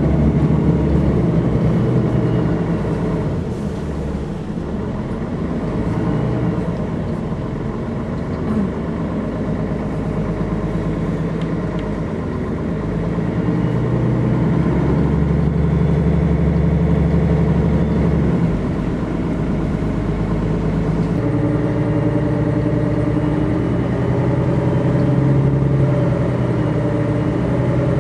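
Engine and road noise of a motor vehicle heard from inside while riding: a steady low hum whose note shifts a few times as it speeds up and slows.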